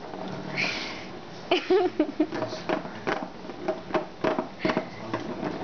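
A plastic ball being nosed around the track of a plastic ball-track cat toy by a dog: a series of short clicks and knocks of the ball and snout against the plastic.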